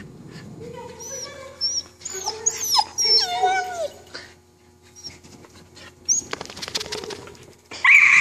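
Border terrier whining and yelping in high, sliding cries, then a loud, held high-pitched cry near the end. A short burst of rapid taps comes about six seconds in.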